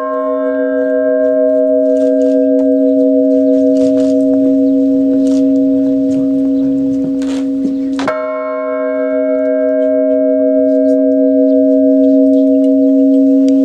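Newly consecrated church bell ringing, with a low hum and several higher overtones that die away slowly. It is struck again about eight seconds in and rings on.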